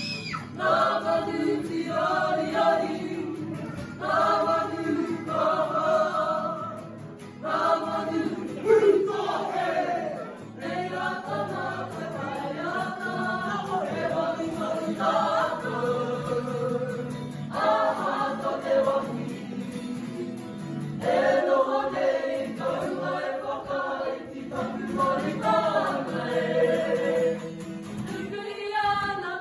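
A kapa haka group singing a Māori poi song in unison, in phrases a few seconds long with short breaths between them, to acoustic guitar.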